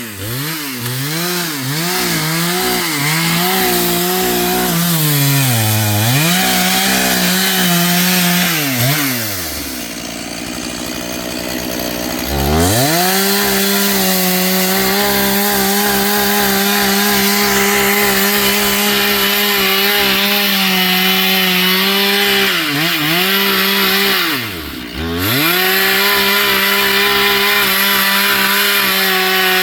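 Chainsaw engine revving up and down several times, then falling to a low idle about ten seconds in. It then holds at steady high revs, with one brief dip in speed a few seconds before the end.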